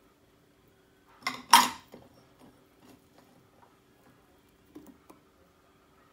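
A kitchen utensil clattering against a dish twice in quick succession about a second in, followed by a few faint clicks, over a faint steady hum.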